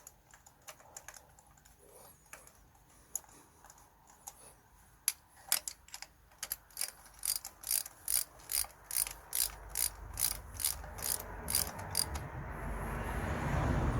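Socket ratchet clicking as a new spark plug is run down by hand: a few faint clicks at first, then from about a third of the way in an even run of sharp clicks, about three a second, getting louder. A rushing noise builds near the end.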